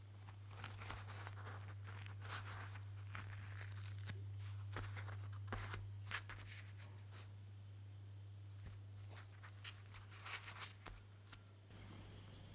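Soft, freshly pan-cooked bazlama flatbread being pulled and torn apart by hand, giving quiet, irregular crackly tearing sounds over a steady low hum.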